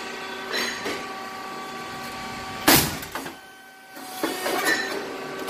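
Rice cake popping machine running with a steady hum, and one sharp, loud pop about two and a half seconds in as a brown rice cake is puffed in the mold, with lighter mechanical clatter around it.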